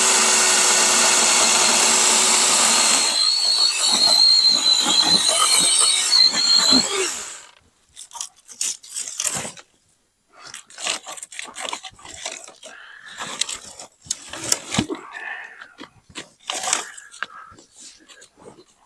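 Dewalt 12-inch cordless battery chainsaw spinning up with a rising whine and running steadily, then running rougher and more unevenly as it cuts into wood, before stopping about seven seconds in. Scattered short knocks and rustles follow.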